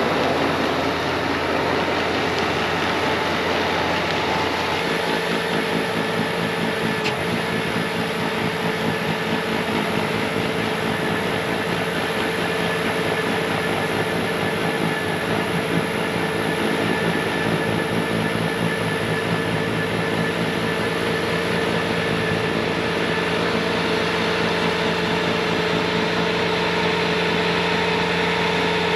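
Bobcat T66 track loader's diesel engine running steadily; about five seconds in, a steady whine joins and holds.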